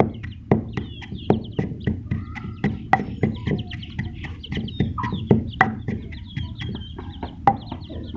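Wooden pestle pounding a crumbly mix of chickpea powder, black pepper and jaggery in a stone mortar, a steady run of dull thuds about four a second. Birds call in the background.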